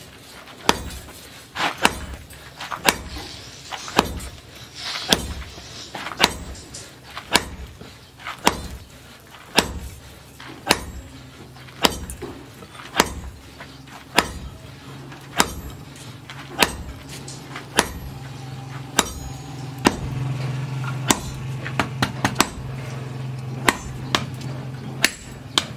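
Hand forging: a striker's sledgehammer blows ring on red-hot iron at the anvil, about one a second, with lighter taps between. A steady low hum joins about two-thirds of the way through.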